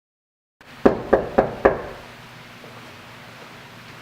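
Four quick knocks on a front door, about a quarter second apart.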